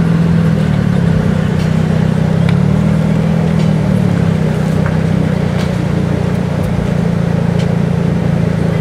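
Car engine and exhaust droning at low revs, heard from inside the cabin as the car rolls slowly. The pitch rises a little twice in the first few seconds, then holds steady.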